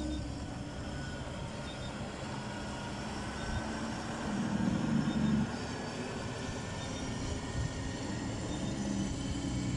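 Loaded logging truck's Detroit Diesel Series 60 engine on the jake brake while descending, a steady drone that swells briefly about four and a half seconds in.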